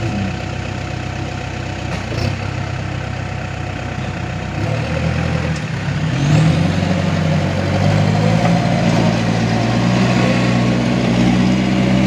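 Diesel engines of a Case 580 backhoe loader and a loaded Hino dump truck running. About six seconds in, the engine note rises and gets louder as they pull the truck out of the mud on a tow cable.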